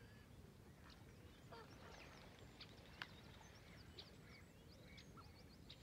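Faint birdsong and calls: many short, high chirps and whistles scattered throughout, with a few lower calls and one sharper call about three seconds in, over a steady low rumble.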